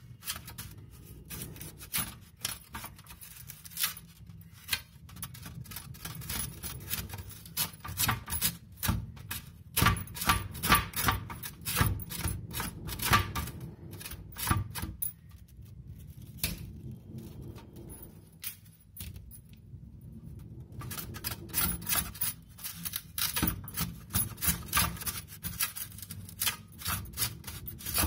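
Fresh unpeeled ginger root being sliced into rough chips on a stainless steel box grater: runs of quick rasping strokes of the root against the metal blades, with a lull in the middle.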